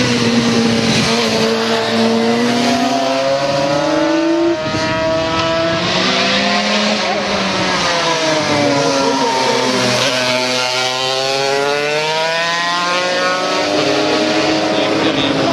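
Vintage racing motorcycle engines revving hard, more than one at a time. Their pitch drops as they slow for the bend and climbs again as they accelerate through the gears.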